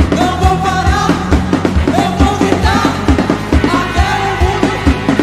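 Worship band playing a song with a sung lead vocal over a steady drum beat, about two kick-drum hits a second.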